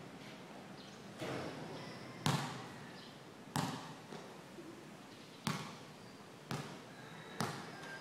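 A basketball bouncing on a concrete court: about six sharp thuds at uneven intervals, each with a short echo, the loudest about two seconds in.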